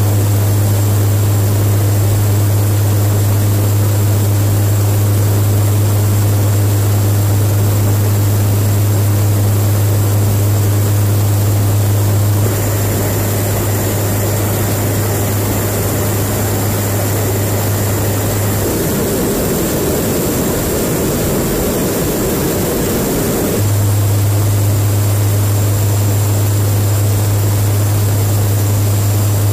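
Steady aircraft engine drone heard inside the cabin of an air-refuelling tanker, carried by a strong low hum. About 12 seconds in the sound shifts. From about 19 to 24 seconds in, the hum drops away under a rougher rushing noise, then comes back.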